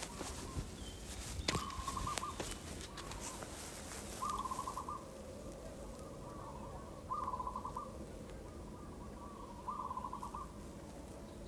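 A bird calling, a short rapidly pulsed note repeated about every three seconds, four times. There are scattered clicks and rustles in the first few seconds.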